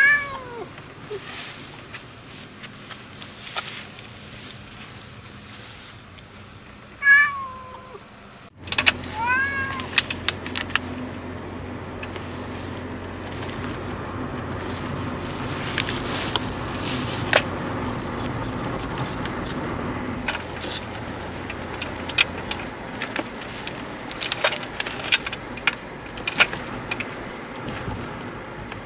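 A cat shut in a pet carrier meows several times, loudest about seven seconds in: the distress cries of a cat that dislikes car rides. After that come a steady low car hum and scattered scuffing and knocks from the carrier.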